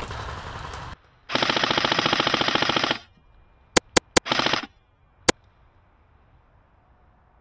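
CYMA Platinum airsoft rifle firing a long full-auto burst of about a second and a half, with a fast, even rattle. It follows with three quick single shots, a short burst and one last single shot.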